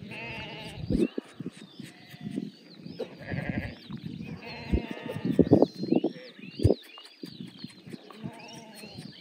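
A flock of sheep bleating, several calls overlapping and coming one after another, the loudest about halfway through. A few low thumps come in between.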